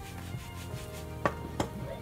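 Background music, with two sharp knocks about a second and a half in, a third of a second apart, as the rectangular tamagoyaki pan is handled and set down on the glass cooktop.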